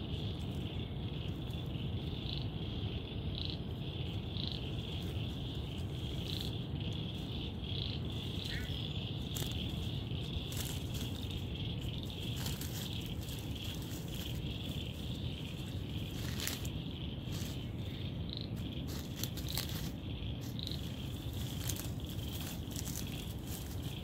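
Steady high-pitched chorus of insects chirring at dusk, over a low rumble, with scattered short crackles and rustles in leaf litter.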